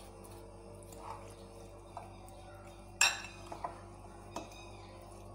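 Metal fork stirring and tapping against a glass bowl while marinated chicken pieces are mixed. A few soft clicks, then one sharp ringing clink about three seconds in, followed by a few lighter taps, over a steady low hum.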